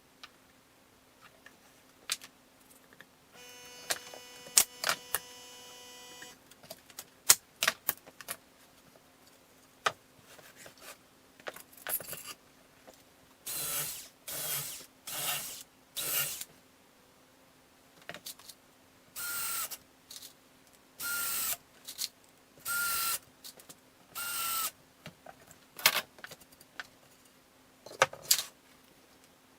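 Workshop handling noises: clicks and knocks of tools and parts, a steady hum for about three seconds early on, then several short bursts of a small power tool, each half a second to a second long, in two groups.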